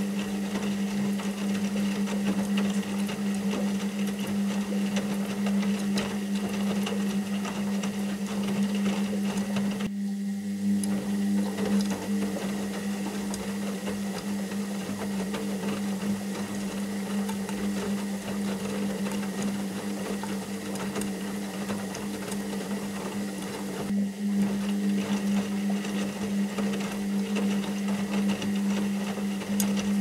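Washing machine running, its motor giving a steady hum with a dense mechanical churn. The sound briefly drops out about a third of the way in and again near the end.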